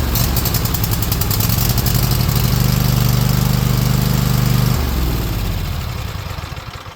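Cub Cadet lawn tractor engine running steadily, then shut off about five seconds in and spinning down to a stop. It is running with its throttle cable back in the correct hole on the throttle arm, after a binding cable had kept the choke from engaging.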